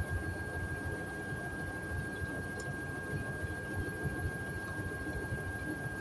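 Hoover front-loading washing machine running with its drum full of suds: a low, uneven rumble of the drum and water under a thin, steady high whine. The heavy foam is the sign of over-sudsing, which sets off the machine's suds lock.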